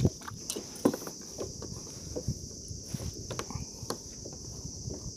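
Scattered light knocks and clicks of gear and limbs moving against a plastic fishing kayak, over a steady high-pitched insect drone.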